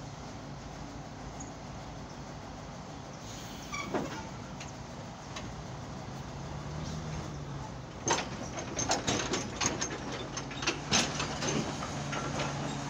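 Mobile crane's diesel engine running steadily while it holds a suspended 40-foot shipping container. There is a single sharp click about four seconds in, and from about eight seconds in a quick, uneven run of sharp metallic clicks and knocks.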